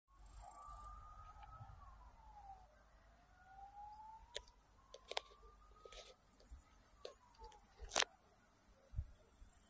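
Faint wailing siren whose pitch slowly rises and falls twice, with a few sharp clicks, the loudest about eight seconds in.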